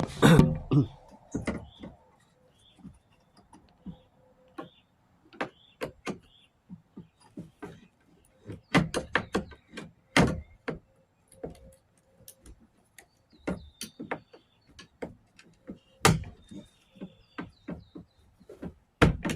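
Irregular plastic clicks, taps and knocks as the old rear roof sunshade of a Mini Cooper R56 is pried off its clips and worked out of its track by hand.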